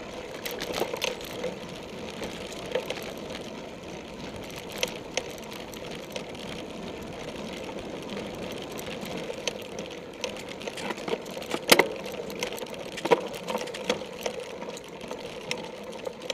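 Cyclocross bike being ridden over grass and dirt, heard through a camera mounted on the bike: a steady whirr of tyres and chain with frequent rattles and knocks from bumps. The sharpest knocks come about twelve and thirteen seconds in.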